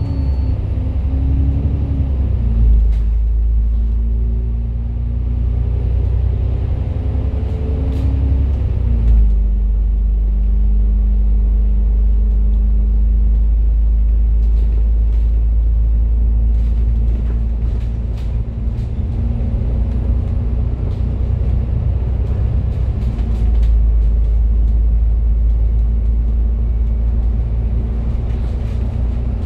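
A Citybus bus on the move, heard from on board: a steady diesel engine and road rumble. About nine seconds in, the engine note drops as the gearbox shifts up, then it slowly rises again as the bus gathers speed, with a few light rattles from the bodywork.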